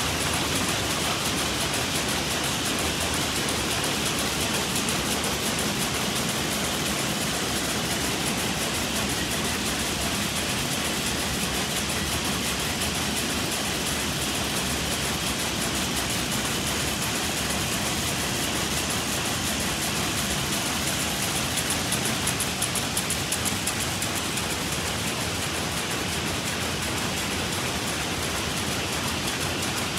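Many rapier jacquard looms running together in a weaving shed, a steady, dense mechanical clatter of beating and shedding.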